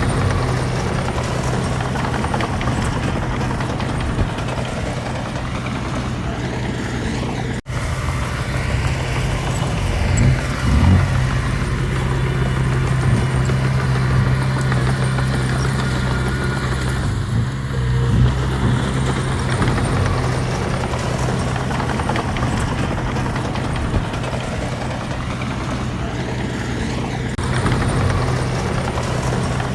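Engine of heavy earthmoving machinery running steadily under load, a continuous low drone, with a few louder surges about ten seconds in.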